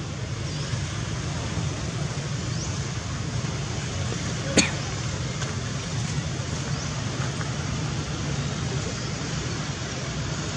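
Steady outdoor background noise, with one sharp click about four and a half seconds in.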